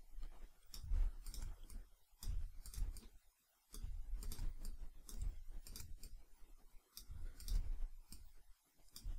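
Computer mouse clicking irregularly, a dozen or so short sharp clicks, over a low rumble that comes and goes.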